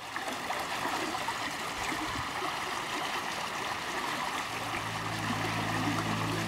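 Fast-flowing stream running over a small cascade, a steady wash of water noise. Low held music notes come in during the last couple of seconds.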